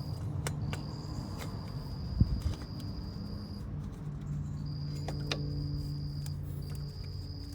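Insects trilling in a steady high pitch that breaks off and starts again a few times, over a low hum, with a few sharp clicks and a low thump about two seconds in.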